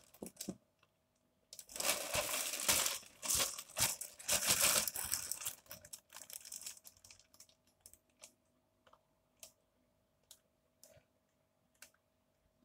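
Clear plastic mailing bag crinkling and rustling in bursts as it is handled for about four seconds, then a few faint scattered clicks as the handling stops.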